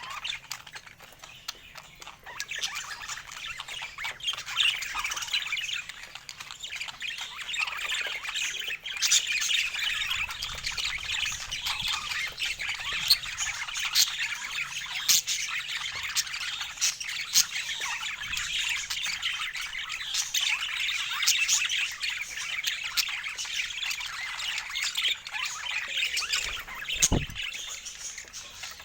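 A pet parakeet chattering and squawking almost without a break, a dense warble broken by sharp high calls and clicks. A brief low thump sounds near the end.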